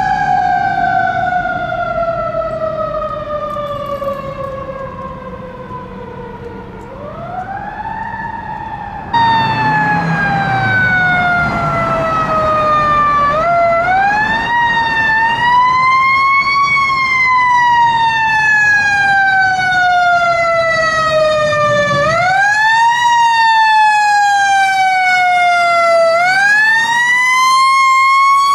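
Fire truck siren wailing in long sweeps, each winding up quickly and then falling slowly, with the pitch rising and falling every four to seven seconds.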